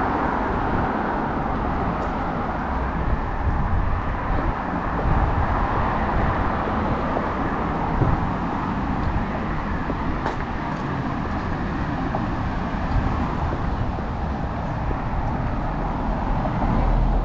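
Road traffic on a wide city street: a steady hum of cars driving past, swelling near the end as a car passes close by.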